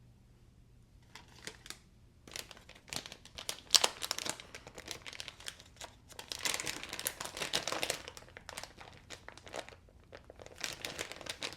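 Paper towel rustling and crinkling in irregular bursts as the parts of a disassembled folding knife are wiped clean, busiest around the middle.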